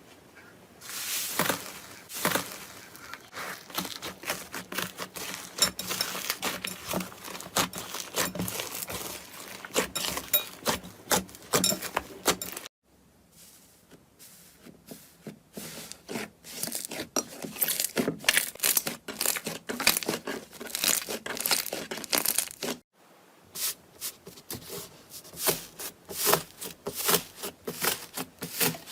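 Slime being squeezed, pressed and stretched by hand, giving dense, irregular crackling and popping. The sound breaks off briefly twice, about 13 and 23 seconds in.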